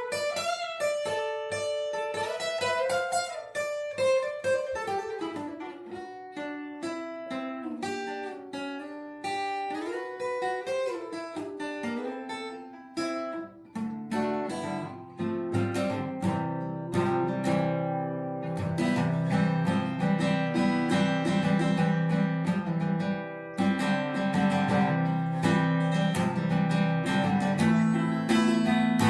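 Acoustic guitar playing: a picked line of single notes, turning to fuller strummed chords about halfway through.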